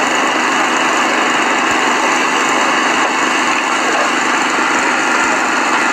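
An engine of the rescue machinery running steadily with an unchanging drone, without revving.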